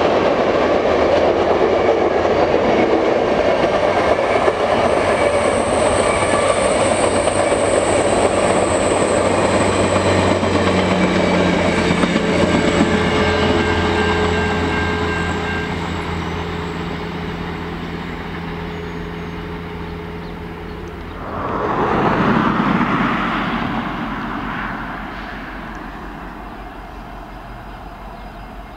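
Rocky Mountaineer passenger train's cars rolling past at speed: a steady, loud rush and clatter of wheels on rail that slowly fades as the last cars go by. About three-quarters of the way through, a separate loud whoosh swells and dies away over a few seconds.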